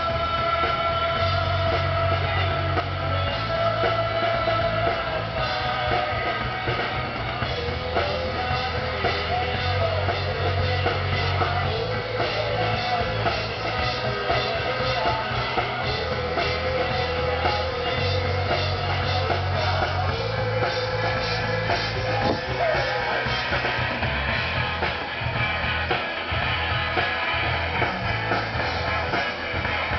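Live rock band playing: drum kit keeping a steady beat under bass and electric guitar, with sustained melodic lines over the top.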